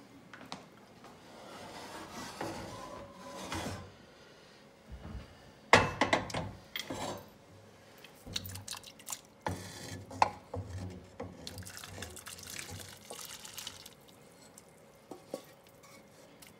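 Cooked egg noodles tipped from a saucepan into a pot of chicken broth: wet plops and splashes, with knocks of the saucepan against the pot, loudest about six seconds in and in scattered bursts after.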